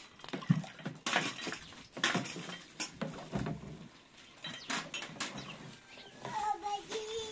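Tea glasses and a metal teapot clinking on a metal tray as they are rinsed with water poured from a plastic jerrycan, a sharp clink every second or so. An animal's drawn-out call starts about six seconds in.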